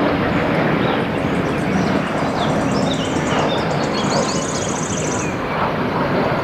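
Airbus A320 jet airliner flying low on landing approach, its engines giving a steady rushing roar, with birds chirping over it.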